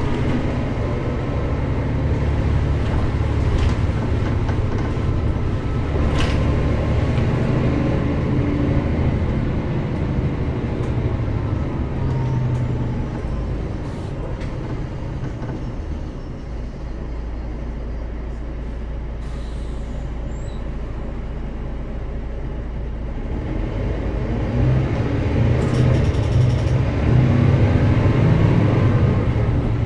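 Mercedes-Benz O405GN² articulated city bus's diesel engine running under load, easing down to a low idle partway through, then accelerating again with rising engine pitch near the end.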